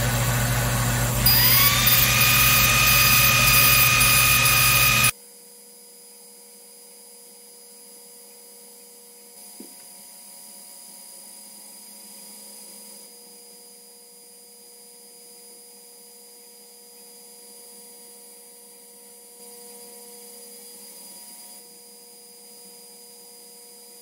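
xTool D1 Pro laser engraver starting a job: steady machine noise, with a whine that spins up about a second in and then holds a steady pitch. It cuts off abruptly at about five seconds, leaving a faint steady hum with thin high tones.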